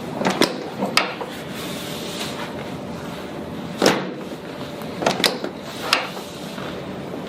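Chiropractic drop table's spring-loaded section dropping under the chiropractor's thrusts on the sacrum: a series of sharp clacks at uneven spacing, some in quick pairs.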